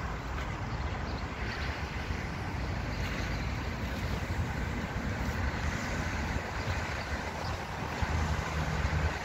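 Wind buffeting the microphone outdoors: a steady low rumble with no clear breaks or knocks.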